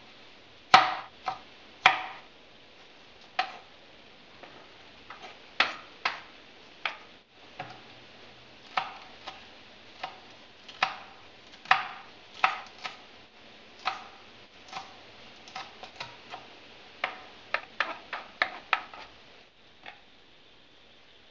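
Kitchen knife chopping tomato and then green chilies on a wooden cutting board: sharp, irregular knife strikes on the wood, about one or two a second, that stop shortly before the end.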